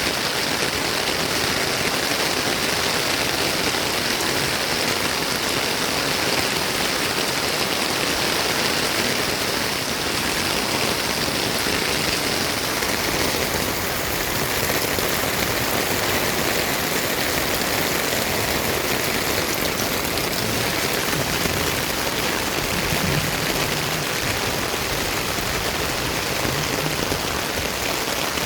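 Steady monsoon rain falling, an even dense hiss.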